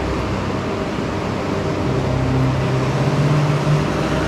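Car running with steady road noise, its engine note rising slowly about two seconds in as it speeds up.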